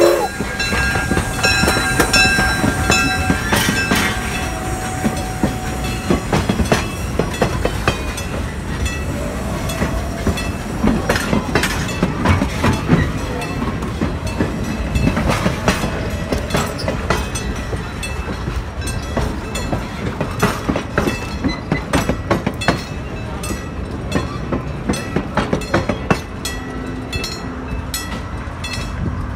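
Steam excursion train's passenger cars rolling past close by, their wheels clicking and clanking over the rail joints. The clicking is dense and irregular at first and settles into a more regular beat toward the end. A few thin steady tones hang on through the first few seconds.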